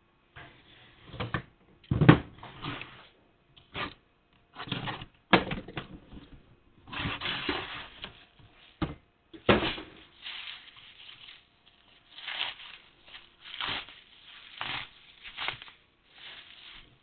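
A parcel being handled and unboxed: irregular rustling and scraping of packaging, broken by sharp knocks, the loudest about two seconds in.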